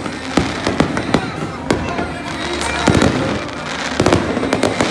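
Aerial fireworks exploding: a quick, irregular series of sharp bangs, several a second, with crackling between them.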